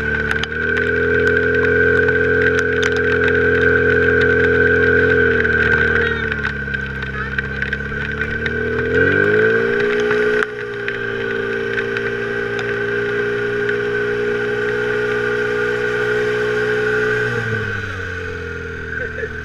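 Portable fire pump's engine running hard at high revs while pumping. Its pitch drops about six seconds in, climbs back up about nine seconds in, holds high, and falls as it is throttled back near the end.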